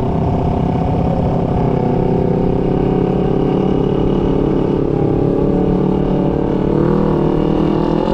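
Motorcycle engine running at a steady cruise, its pitch shifting slightly about seven seconds in.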